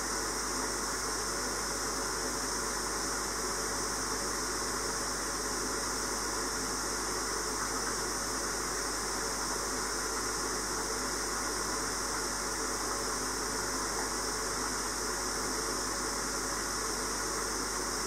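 Steady, unchanging hiss with a constant low hum beneath it.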